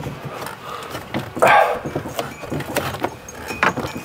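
Handling noises of a Land Rover Defender's glass sunroof being lowered and pressed down onto adhesive foam: a run of light knocks, clicks and rattles, with one louder sound about a second and a half in.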